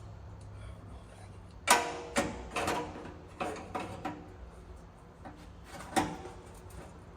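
Metal exhaust pipe clanking and ringing as it is lifted and fitted up under the truck: a loud clank about two seconds in, several more knocks over the next two seconds and one more near the end, over a steady low shop hum.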